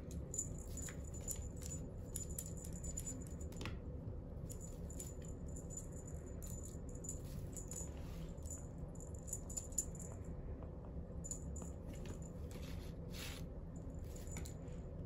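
A feather-and-ribbon wand cat toy jingling and rattling in short bursts, with scattered light clicks, as kittens bat at it. A steady low hum sits underneath.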